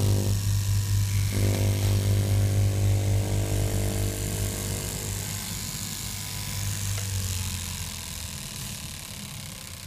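Electric straight-knife cloth cutting machine running, its motor giving a loud, steady low hum as the upright blade cuts through stacked layers of fabric. The hum weakens near the end.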